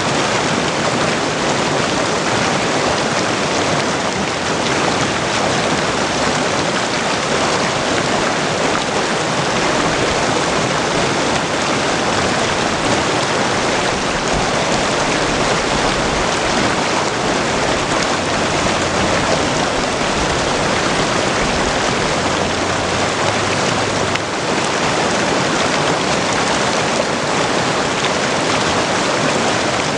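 Mountain creek rushing steadily over stones and rocks, a constant dense splashing and burbling of cold, fast water.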